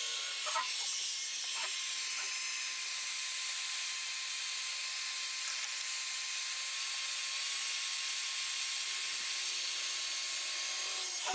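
DeWalt heat gun running steadily: an even fan hiss with a faint steady whine. It is blowing hot air onto a drawer's glued joint to loosen the drawer front.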